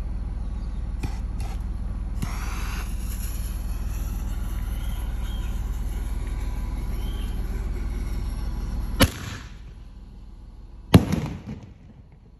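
A 'Cherry Blaster' aerial firework fired from a tube. A fuse hisses for several seconds, then a sharp launch report comes about nine seconds in. About two seconds later the shell bursts overhead with a louder bang that echoes away, which the crowd rates as on the weaker end.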